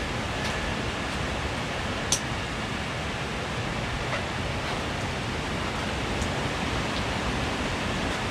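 Steady rush of wind, with one sharp click about two seconds in.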